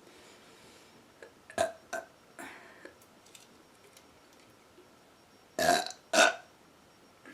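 A woman burping: a few short, softer sounds early on, then two loud burps about half a second apart near the end.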